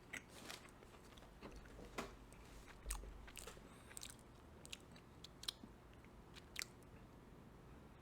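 Faint crunching and chewing of a frosted blueberry Pop-Tarts Crisps pastry snack, with irregular crackly crunches, the loudest about two and three seconds in.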